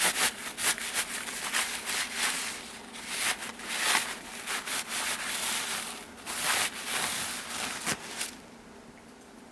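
Irregular rubbing and scraping of hands working on spring-piston air rifle parts during cleaning, stopping about eight seconds in.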